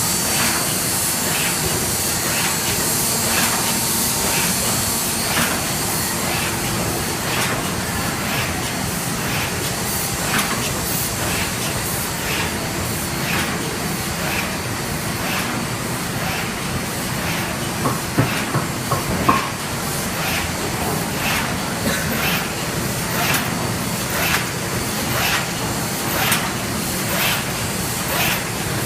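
Machine running steadily with a hiss and a regular light clack, about three beats every two seconds, and a few louder knocks about two-thirds of the way through.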